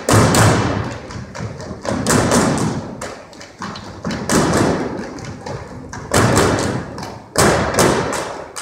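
Unarmed drill team stomping and clapping in unison on a gym floor: sharp, echoing clusters of impacts, about one cluster every second or two.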